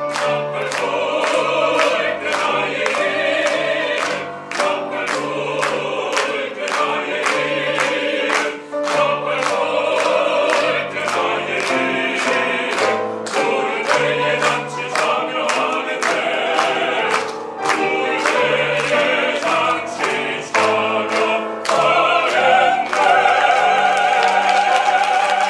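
Small mixed-voice ensemble of five, three men and two women, singing a gospel hymn in harmony with accompaniment. The voices swell near the end into a loud, long-held chord.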